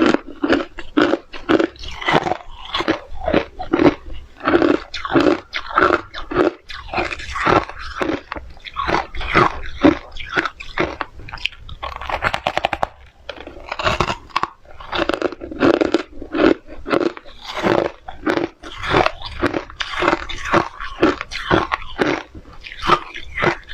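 Close-up mouth crunching and chewing of hard shaved ice and crushed ice: a steady run of sharp crunches, about two to three a second, with squeaky grinding between bites.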